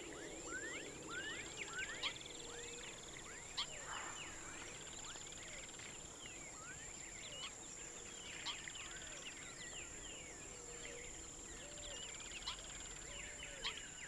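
Faint natural ambience: many birds giving short chirps and calls, over a steady high-pitched insect drone with some buzzy trills. A few soft, low whistled notes come up now and then.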